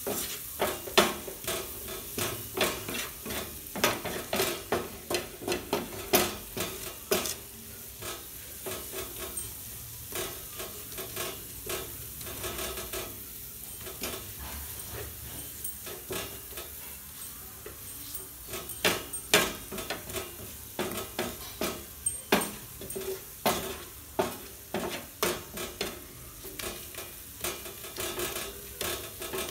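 Onions and tomatoes sizzling in butter in a flat frying pan, with a spatula scraping and tapping against the pan as they are stirred. The spatula clicks come in quick runs and thin out for a while in the middle.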